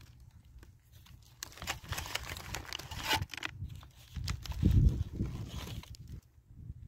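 Sandwich wrapper paper crinkling and rustling as the sub is handled, in short crackling bursts. A low rumbling thump, the loudest sound, comes a little after halfway.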